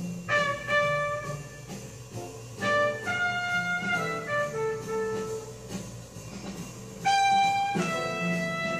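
Background jazz music: a horn plays long held notes over a bass line.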